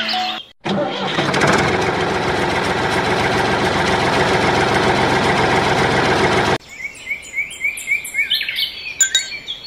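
A loud, rough, even engine-like noise, fitting a miniature tractor's running sound, goes on for about six seconds and cuts off suddenly. Birds then chirp in quick repeated calls.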